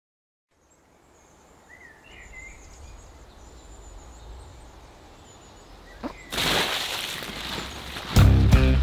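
Faint outdoor ambience with birds chirping, then about six seconds in a sudden loud splash as water is dumped over a man sleeping on cardboard. Loud music starts near the end.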